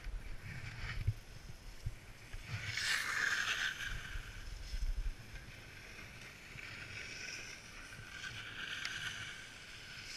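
Skis scraping and swishing over packed, groomed snow during a descent. The hiss swells with each turn, loudest about three seconds in and again near the end, over a low rumble of wind on the microphone.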